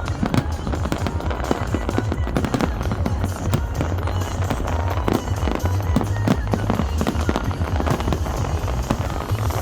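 Fireworks bursting in quick succession, many sharp bangs and crackles, over loud music with a heavy bass.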